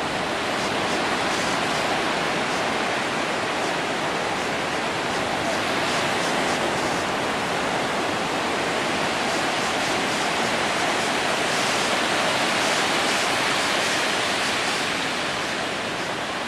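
Ocean surf washing in over a shallow, flat sandy beach: a steady rushing hiss that softens a little near the end.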